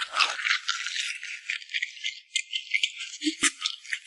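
Loud, dense crunching of something very hard being chewed close to the microphone, a rapid run of crackling clicks, with one sharp knock about three and a half seconds in.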